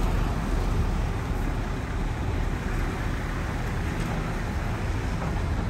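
Heavy earthmoving machinery engine running steadily, a little louder in the first second.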